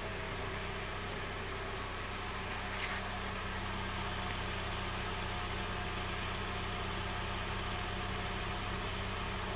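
The 2013 Mitsubishi Outlander Sport's 2.0-litre four-cylinder engine idling steadily, heard at the exhaust tailpipe.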